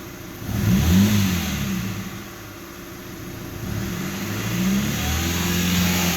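BMW E90 320i's four-cylinder petrol engine revved twice from idle, its pitch rising and falling back about a second in, then rising again and held near the end. Between revs it idles with a loud rattling knock that stops when revved, which the owner doubts is detonation knock and suspects comes from a tired vacuum pump.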